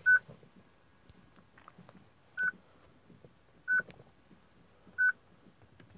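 Peugeot RD45 car radio beeping: a short, single high tone repeated four times, about every second and a half. The radio beeps while the ignition is on because it still holds another car's VIN, which has not yet been coded to this car.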